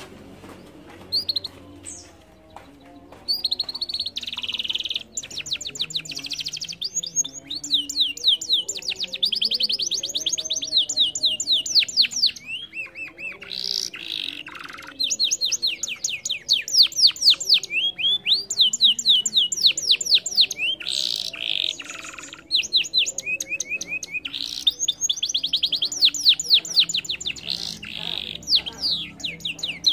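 Domestic canary singing a long song of fast trills, rapid runs of repeated sweeping notes, broken by short pauses about 12 and 22 seconds in.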